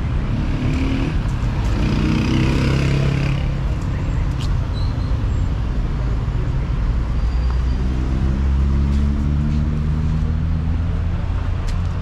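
Street traffic: a steady low rumble of car engines and tyres passing on the road alongside, with one vehicle's engine heard more plainly about eight to ten seconds in.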